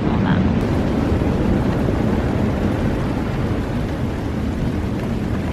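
Steady rush of heavy surf breaking on the beach, with wind on the microphone.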